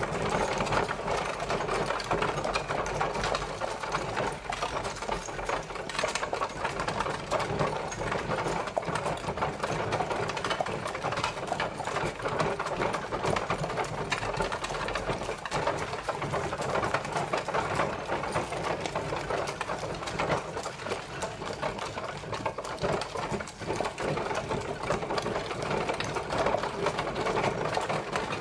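Horse-drawn carriage travelling: a steady, dense rattle and clatter from the moving carriage, without a break.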